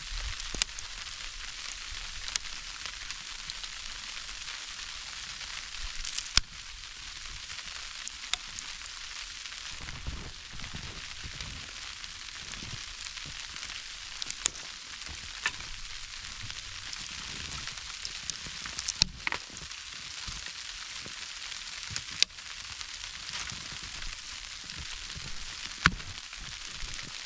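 Falling icy snow, a steady fine hiss with scattered sharper ticks.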